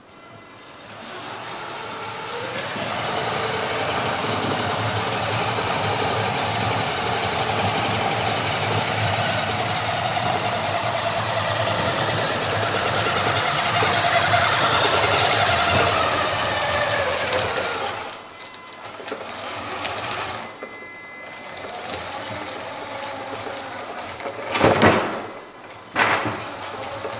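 Radio-controlled King Hauler dump truck's electric motor and gearbox whining as it drives, the pitch rising and falling with speed, for most of the first eighteen seconds. After that it runs more quietly and unevenly, with two short, sharp sounds near the end.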